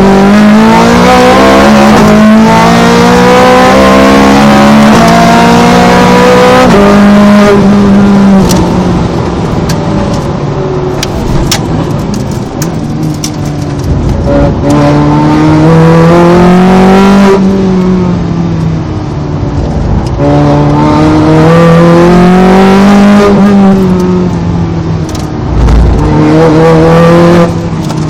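Ferrari 430 Scuderia's V8, heard from on board, pulling hard through the gears: the revs climb and drop sharply at each quick upshift, then fall as it slows for corners, several times over.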